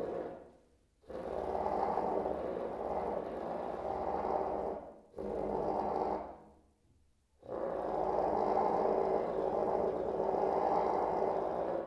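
Trumpet blown mostly as air, giving breathy, nearly unpitched tones with a faint pitch underneath. It comes in three phrases, about four seconds, one second and four seconds long, each starting suddenly and trailing away into a short break.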